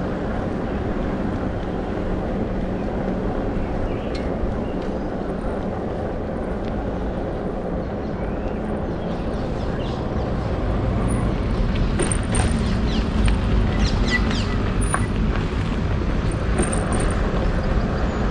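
Steady rumble of wind on the microphone and bicycle tyres rolling on a paved path while riding, growing louder about ten seconds in, with a few light clicks.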